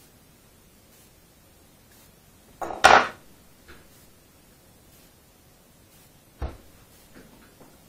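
Handling noises at a fly-tying vise: a brief rasping noise in two quick parts about three seconds in, the loudest sound, then a single sharp knock about six and a half seconds in, with a few faint ticks after it.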